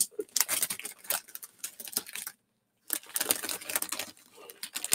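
Crinkling and rustling of a clear plastic comic-book bag being handled. The sound cuts out completely for about half a second midway.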